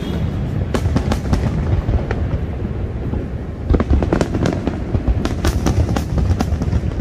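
Aerial fireworks bursting in quick runs of bangs and crackles over a steady low rumble. The bursts thin out for about two seconds after the first second, then come thick and fast from about four seconds in.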